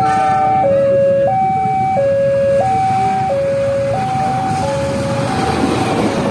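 Two-tone electronic warning siren alternating steadily between a low and a high pitch, each held about two-thirds of a second. Near the end it fades under the rising rush of a diesel locomotive and passenger train passing close by.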